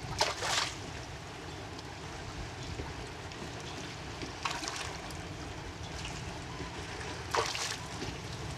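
Water splashing in three short bursts, about a second in, near the middle and near the end, over a steady low rumble of wind on the microphone.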